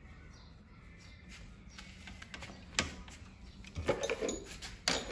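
Scattered sharp clicks and knocks of hand tools and small plastic parts being handled on a copier's transfer belt unit, mostly in the second half, with one louder click near the end.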